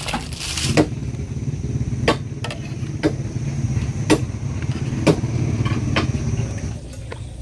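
A small engine running steadily as a low rumble, fading near the end, with sharp knocks about once a second.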